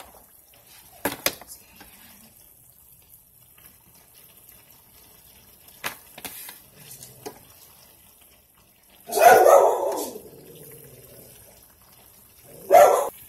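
A dog barking: a loud volley of barks about nine seconds in and a shorter bark near the end. A sharp clack comes about a second in.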